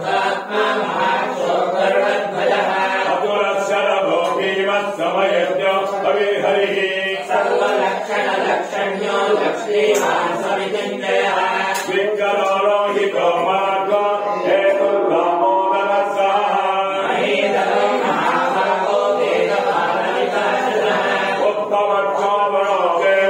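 Several voices chanting Sanskrit mantras together in a continuous, even recitation.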